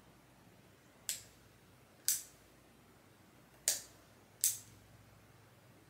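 Four sharp clicks of a GMCONN pistol weapon light's switch being pressed, about a second apart with the last two closer together.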